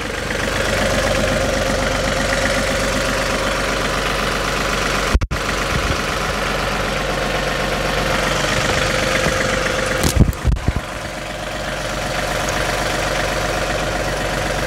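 John Deere 3038E compact tractor's three-cylinder diesel engine running at a steady idle. Brief knocks cut across it about five seconds in and again, in a short cluster, about ten seconds in.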